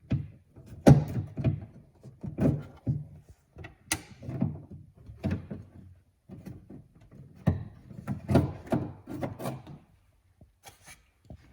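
Irregular clicks and clunks as a truck's outside door handle is worked loose: its plastic clip is popped off the metal bar and the handle is pulled free of the door. About a dozen knocks, unevenly spaced, the sharpest about a second in and about four seconds in.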